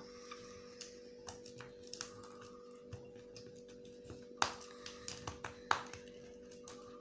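Knife blade scraping and clicking against a raw oyster's shell as it is pried open, with small irregular clicks and two sharper knocks about four and a half and nearly six seconds in. A faint steady hum runs underneath.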